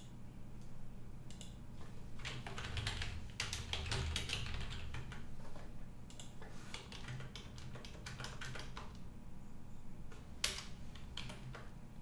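Typing on a computer keyboard in quick runs of keystrokes while entering values into form fields, with a few separate, louder clicks near the end.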